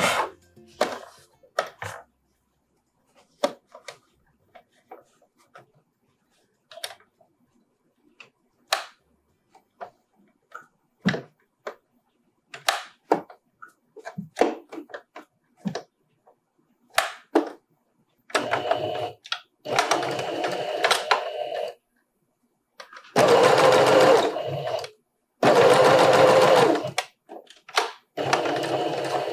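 Domestic electric sewing machine stitching in four short runs of a couple of seconds each, stopping and starting again, beginning about two-thirds of the way in. Before that there are only scattered light clicks and taps.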